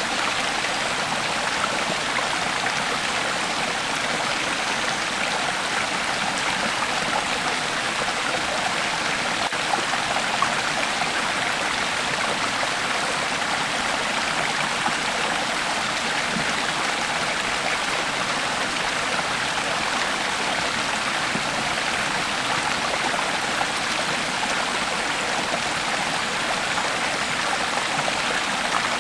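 Creek water flowing steadily over rocks, a constant rushing and babbling.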